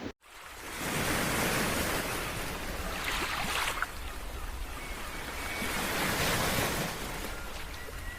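Sea waves washing onto the shore, swelling and falling away every few seconds.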